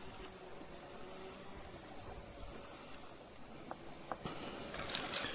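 Insects chirring steadily in a high, finely pulsing drone, with footsteps starting up near the end.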